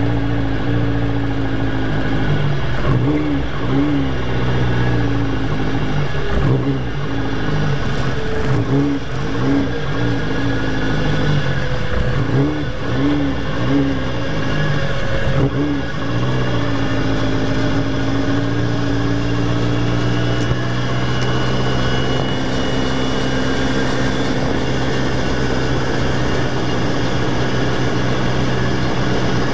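RotorWay Talon A600 helicopter's flat-four engine and rotor running on the ground, heard from inside the cockpit. For the first half its pitch wavers up and down about once a second, then it runs steadily.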